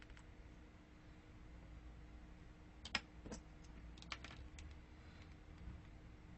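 A handful of small, sharp clicks and taps bunched around the middle, over quiet room tone: a small screwdriver and tiny screws being handled on an iPhone 7 Plus during disassembly.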